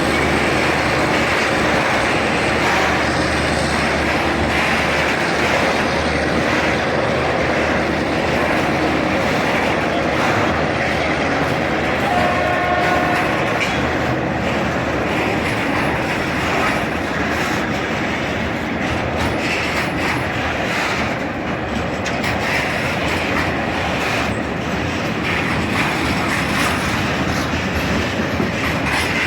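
Loaded container freight train rolling along the track, the wagons clattering steadily over the rails. A brief horn note sounds about twelve seconds in.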